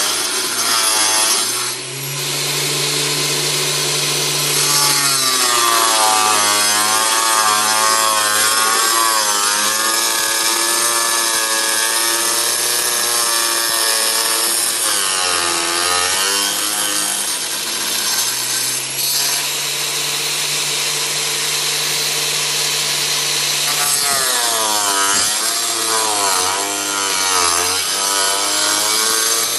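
A power tool sawing through the metal tub of an automatic washing machine, running without a break. Its pitch rises and falls as the load on the cut changes.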